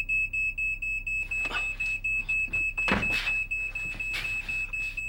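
Smoke alarm beeping rapidly on one high-pitched tone, about four beeps a second, set off by smoke from a burning toaster. A few knocks sound among the beeps, the loudest about three seconds in.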